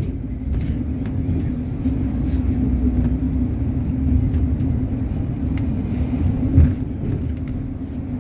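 City bus running along the road, heard from inside the passenger cabin: a steady low rumble of engine and tyres with a held hum, and a single thump about six and a half seconds in.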